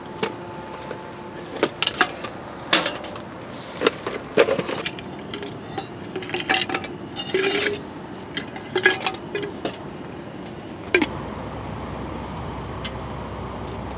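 Tableware being handled: scattered light clinks and knocks, about a dozen over the first eleven seconds. About eleven seconds in, a sharper knock is followed by a steady low rushing sound.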